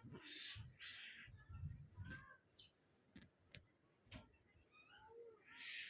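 Faint bird calls, short rasping calls and chirps, with a few sharp clicks a little past the middle.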